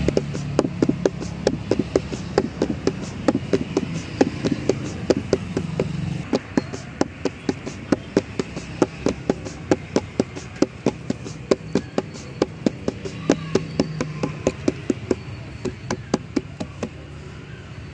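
Palms patting jowar (sorghum) dough flat into a roti on a flour-dusted board. The slaps are rapid and even, about four a second, and stop near the end.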